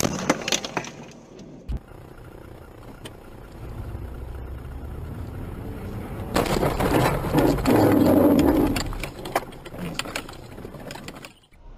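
Dashcam audio of car crashes: a loud impact right at the start as a car hits a flatbed truck, then car engine and road noise. A second, longer loud stretch of collision noise runs from about six to nine seconds in, and the sound cuts off abruptly near the end.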